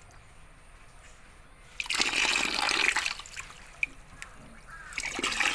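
Pond water splashing in two bursts: a loud one lasting about a second, starting about two seconds in, and a shorter one near the end.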